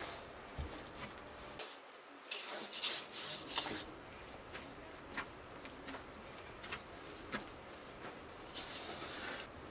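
Hands kneading dough in a large aluminium bowl: soft, irregular rubbing strokes with a few brief clicks, louder about three seconds in.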